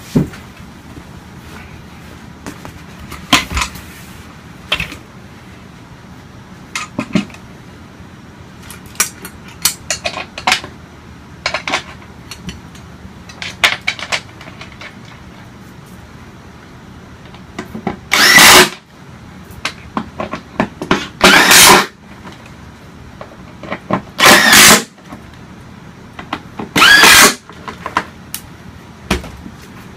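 Cordless power driver driving screws in four short runs, about three seconds apart, in the second half. Before them come scattered clicks and knocks of parts and hardware being handled.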